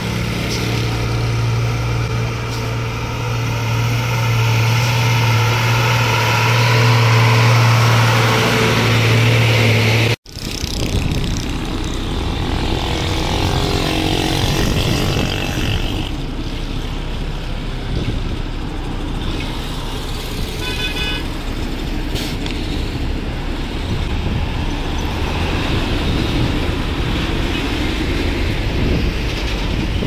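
Coach bus engines running as buses pull out, with a steady low engine hum close by for the first third. After an abrupt cut, mixed traffic noise of engines and tyres on the road.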